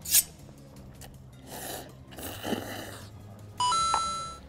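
Slurping of spicy fried noodles in two short noisy stretches, then a rising two-note electronic chime held almost a second near the end: an added 'clear' sound effect marking eight bowls of Buldak fried noodles finished. A short sharp sound comes just at the start.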